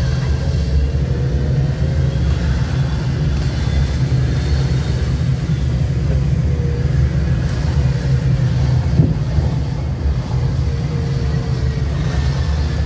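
Steady low rumble of a car being driven along a road: engine and tyre noise from the filming car.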